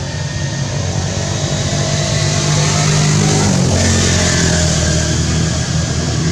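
An engine running steadily with a low hum, its pitch dropping a little about halfway through, over a steady hiss.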